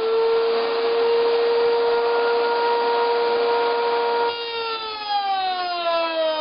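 Router running in a router table with a steady high whine. About four seconds in, its pitch sinks steadily as the bit cuts into the wooden piece and the motor slows under load.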